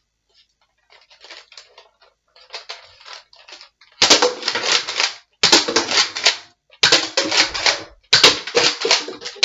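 Nerf Rough Cut 2x4 pump-action dart blaster fired four times in quick succession, each a loud, rattling clack of about a second from the pump stroke and the darts launching. Before the shots come faint clicks of the blaster being handled.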